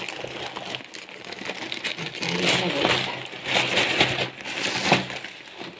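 Plastic shipping bag crinkling and rustling in uneven bursts as hands dig through it and pull it open.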